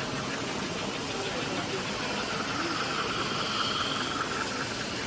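Steady room hubbub with indistinct voices in the background. A faint high whine swells about two seconds in and fades before the end.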